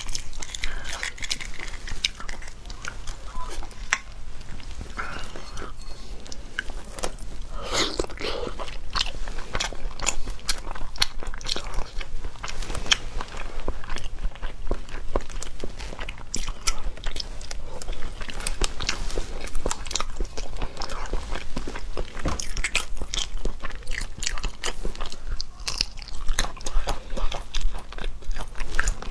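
Close-miked eating of a boiled huozhuzi (partly developed egg): brittle shell being picked off with small cracks and ticks, mixed with biting and wet chewing.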